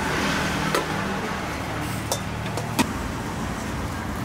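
Steady street traffic with the low hum of passing engines, and three short, sharp clicks.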